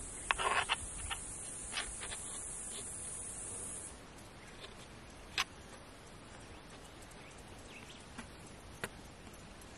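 Outdoor ambience with a steady high-pitched insect buzz, like a cricket, that stops abruptly about four seconds in. A quick cluster of short clicks or chirps comes near the start, and a few single ticks follow later.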